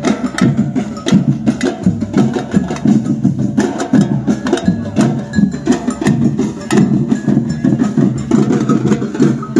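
Batucada percussion group playing drums in a steady, fast rhythm of several strikes a second, with sharp knocks on top.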